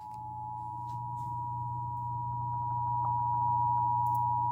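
Emergency Alert System attention signal: two steady tones near 1 kHz (the standard 853 and 960 Hz pair) sounding together, with a low hum beneath, growing gradually louder. It is the alert tone that opens a Mississippi EAS Required Monthly Test broadcast.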